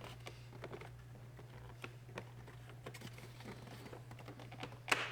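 Plastic interior door handle of a 2005 Volkswagen Jetta being slid and pushed into the door panel: a run of light clicks and taps, then one sharp click near the end as it snaps into place. A steady low hum runs underneath.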